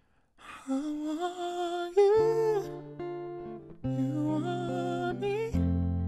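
A man's wordless singing with vibrato comes in about half a second in, and a hollow-body electric guitar joins about two seconds in with ringing chords and single notes, adding a deep bass note near the end.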